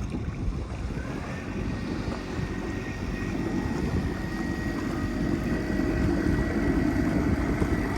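A motor running with a steady high whine that comes in about a second in and a drone that grows a little louder toward the end, over wind rumble on the microphone.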